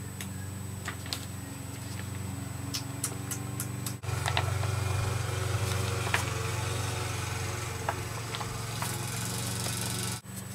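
Glossy magazine pages handled and flipped, with scattered light clicks and rustles over a steady low electrical hum. The sound breaks off sharply about four seconds in and again near the end.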